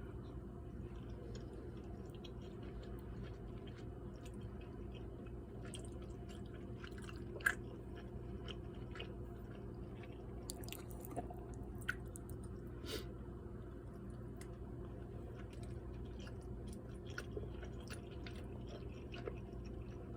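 A person chewing cheesy macaroni pasta close to the microphone: soft, wet mouth clicks scattered throughout, a sharper click about seven and a half seconds in, over a steady low hum.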